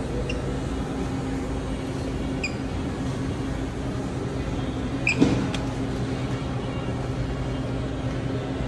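Steady mechanical hum of a supermarket's background, as from refrigeration and ventilation. Three short high beeps sound a couple of seconds apart, and a single knock about five seconds in is the loudest moment.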